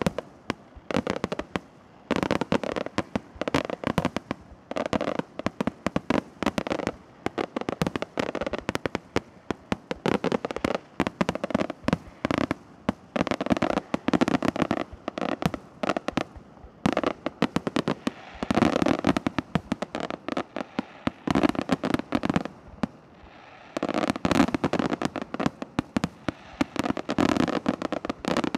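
Fireworks display: a rapid, continuous barrage of aerial shell bursts and firecracker bangs, several a second, with a brief lull a little before the last few seconds before the barrage picks up again.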